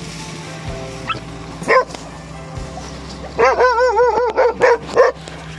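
Dog barking: one sharp bark, then about halfway through a longer wavering cry, then two more quick barks near the end, over soft background music.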